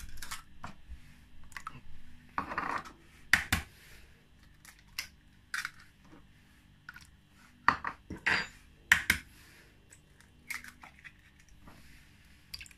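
Eggs being cracked and added one by one: a run of sharp taps and knocks of eggshell on a bowl rim and of light dishes clinking, with a short soft splash around two and a half seconds in. The loudest knocks come in groups around three seconds and eight to nine seconds in.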